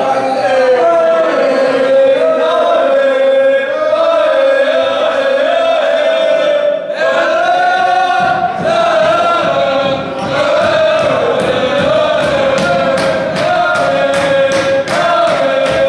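A group of men singing a chant together, loud and steady, with rhythmic clapping joining in about ten seconds in.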